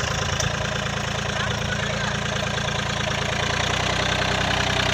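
Tractor's diesel engine running steadily at a low, even speed.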